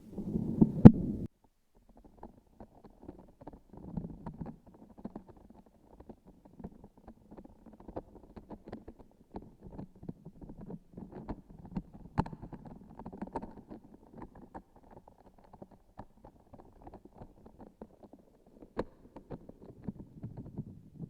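Close-miked handling of a transparent sticky object with a filling inside, giving a dense run of soft crackles and small clicks. A sharp click comes about a second in, the sound drops out briefly just after it, and a few louder clicks stand out later.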